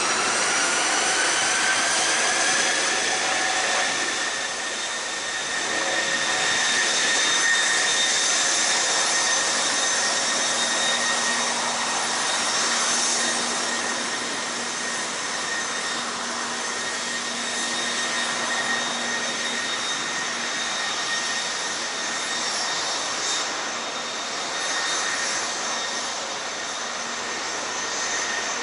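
Canadair CRJ-200's rear-mounted General Electric CF34 turbofans running at taxi power: a high whine over a steady rushing hiss. The whine rises in pitch over the first two seconds and then holds steady.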